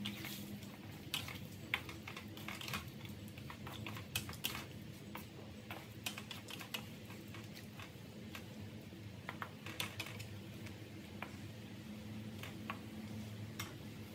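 Wooden spatula stirring broccoli in a metal pan, making irregular clicks and light scrapes against the pan in bunches, over a steady low hum.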